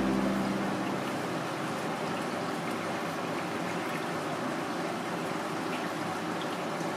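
Steady rushing and trickling of aquarium water moving through the tank's filter, with a faint steady hum underneath.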